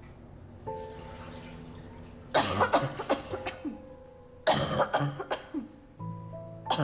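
A sick person coughing in two hard fits, each about a second long, over a few soft held music notes.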